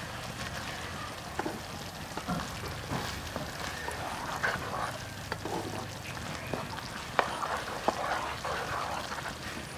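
Chili-garlic sauce sizzling in a frying pan while a wooden spatula stirs it, with scattered scrapes and knocks of the spatula against the pan, two sharper knocks near the end.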